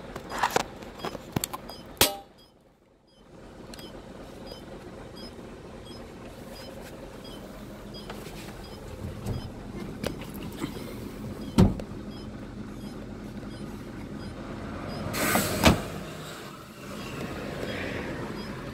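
Diesel truck engine running steadily, heard from inside the cab. A few sharp knocks and clicks cut through it, the loudest about twelve seconds in, and there is a short hiss just before a final knock near the end.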